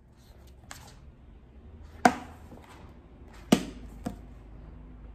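A thick paperback book being handled: two loud sharp knocks about a second and a half apart, then a softer one, over light rustling of the book and its pages.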